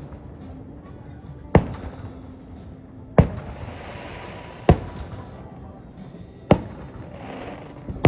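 Fireworks going off: five sharp bangs about a second and a half apart, with a softer hissing between them.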